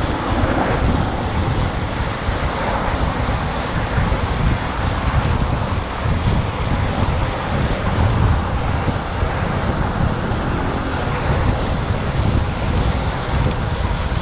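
Wind buffeting a GoPro HERO5's microphone, a heavy fluttering rumble over steady traffic noise.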